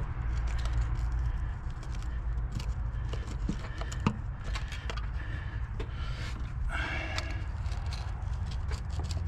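Scattered light metal clinks and scrapes of hand tools working around an engine, with one sharper knock about four seconds in, over a steady low hum.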